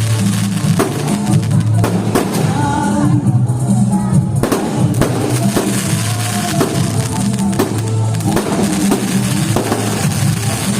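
Loud music with a heavy drum beat and a steady, repeating bass line.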